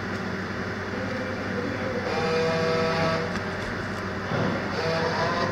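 A vehicle running steadily: a constant engine hum under an even wash of road noise.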